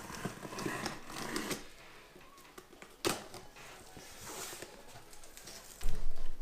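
Cardboard box being opened by hand, with crackling and scraping of the packaging. There is a sharp knock about three seconds in and a loud, dull thump near the end.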